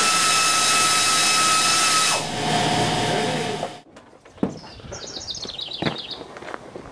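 Loud hiss of compressed air with a steady whistle, dropping in pitch about two seconds in and cutting off sharply just before four seconds. After that, a bird chirps a quick falling series of high notes.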